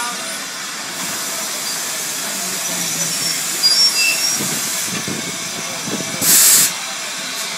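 Steam locomotive, the LNER Peppercorn A1 Pacific 60163 Tornado, standing with steam hissing steadily. A short, loud blast of steam comes about six seconds in.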